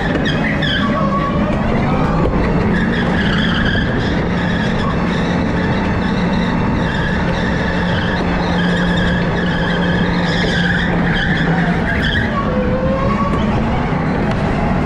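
Electric go-kart's motor whining steadily, its pitch rising and falling with speed. Tyres squeal as the kart slides through tight corners.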